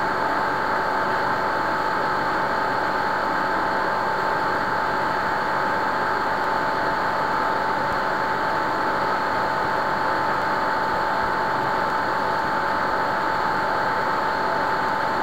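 Steady background hiss with a constant high-pitched whine, the noise floor of the narration microphone and computer during a screen recording.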